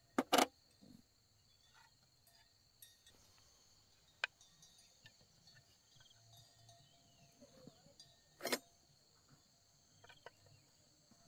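Crickets trilling steadily in two high, unbroken bands, with a few sharp knocks: a double knock right at the start, a lighter one about four seconds in, and a strong one about eight and a half seconds in.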